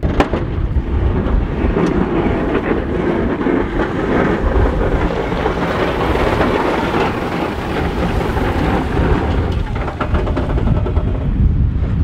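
Ford F-250 pickup pushing heavy wet snow with a Boss DXT plow, the blade scraping and shoving slush as the truck runs past, strongest around the middle. Strong wind buffets the microphone throughout.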